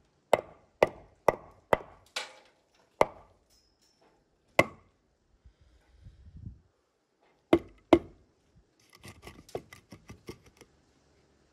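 Claw hammer striking the mortar and block top of a wall: a quick run of about six sharp blows, a single blow a little later, two more close together, then a run of lighter taps and knocks.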